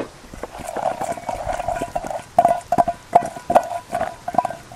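Salt being dispensed onto oiled leeks: a rattling run for about the first two seconds, then separate sharp clicks about two or three a second.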